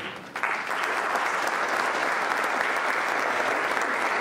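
Audience applauding steadily in an auditorium, starting about half a second in after a brief knock.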